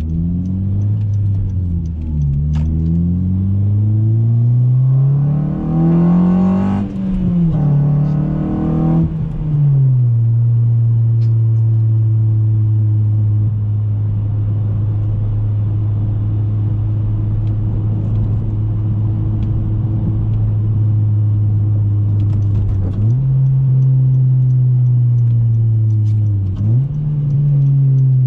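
2014 Honda Civic Si's 2.4-litre four-cylinder engine through an Invidia N1 cat-back exhaust, accelerating hard through the gears: the engine note climbs, drops at each upshift, and climbs again. After about ten seconds it settles into a steady cruise, with two brief dips in the note near the end, after which it holds a slightly higher pitch.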